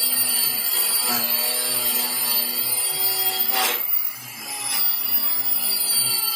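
Electric sander running against wood, a steady abrasive rubbing with a motor whine; it eases off briefly about four seconds in, then picks up again.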